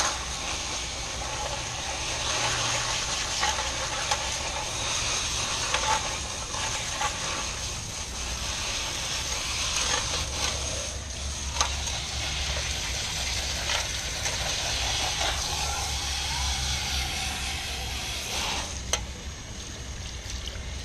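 Water from a hose spraying and hissing through a clogged chilled-water pump strainer as it is washed out, over a steady low hum, with a few sharp clicks.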